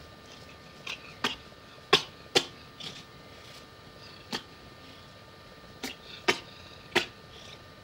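A bristle brush being rubbed over a cat's face, giving about nine sharp, irregular clicks and snaps as the bristles catch and flick against the Abyssinian cat's cheeks, whiskers and teeth; the loudest comes about two seconds in.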